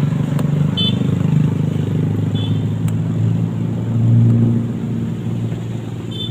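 Small motorcycle engine running at low revs, its low hum dipping in pitch and swelling about four seconds in. A few short high chirps sound over it.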